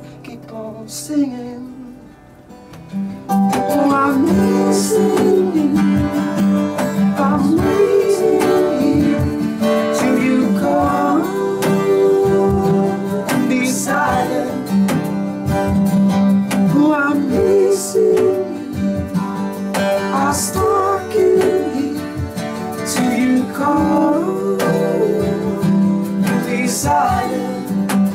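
Acoustic guitars strummed while a man sings lead: a live unplugged song. Soft for the first few seconds, then the strumming and voice come in fully from about three seconds in.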